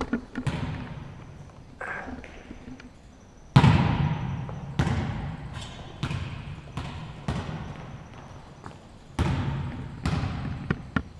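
Volleyballs being hit and striking the hardwood gym floor: about a dozen sharp smacks at uneven intervals, each echoing in a large gymnasium, the loudest about three and a half seconds in.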